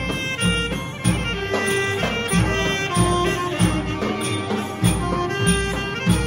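Saxophone playing a held, stepwise melody in old-style Thai brass-band (trae wong) music, over a backing with a regular low drum beat.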